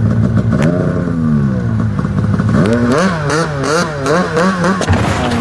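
Snowmobile engines running, one revved up and down about half a second in, then blipped quickly up and down several times in the second half.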